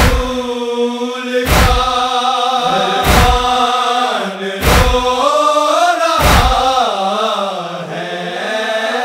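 Male noha party chanting a Shia lament in long, held, wavering vocal lines, without instruments. A deep thump keeps the matam (chest-beating) beat about every second and a half, pausing near the end.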